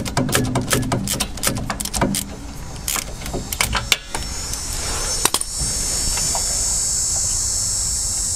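Socket ratchet clicking rapidly as it unscrews a rear wheel-bearing hub bolt, then a few single clicks as it slows. From about five and a half seconds a steady high-pitched buzz carries on.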